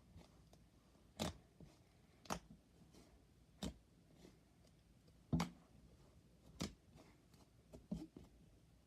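Air-filled fluffy slime being pressed and squeezed by hand, giving six short, sharp clicks and pops from trapped air, about one every second and a bit.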